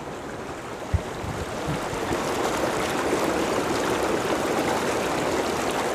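Intex PureSpa inflatable hot tub's bubble jets running: the air blower drives a steady rushing, bubbling churn through the water. A single knock about a second in.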